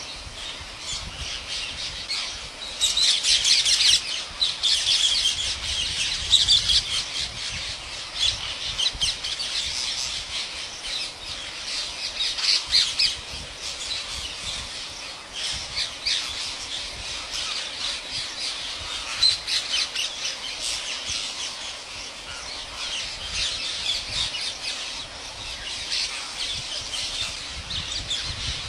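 A large flock of rose-ringed parakeets screeching together in an unbroken, overlapping chatter, loudest from about three seconds in and again around twelve seconds.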